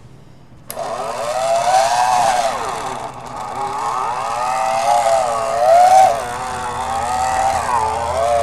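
Electric hand mixer switched on about a second in, its motor whining loudly and wavering up and down in pitch as the beaters churn thick whipped topping and crunchy peanut butter, over a steady low hum.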